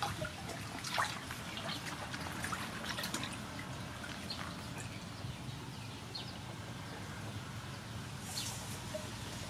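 Water splashing and dripping in a metal basin as whole squid are washed by hand, rubbed under the water and lifted out dripping, with scattered small splashes.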